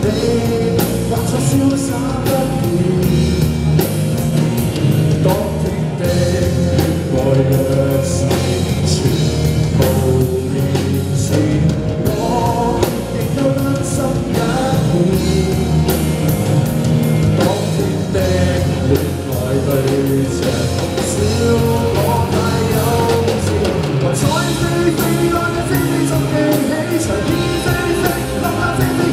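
Live rock band playing: a male lead singer over electric guitars, bass guitar and a drum kit.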